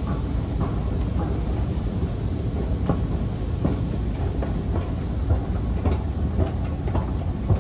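Metro train running through an underground station: a steady low rumble with irregular clacks and knocks on top.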